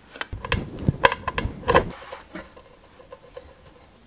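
A quick run of clicks and light knocks with low thuds over about two seconds, then a few faint ticks: hands handling a paint pen and small metal hardware on a tabletop.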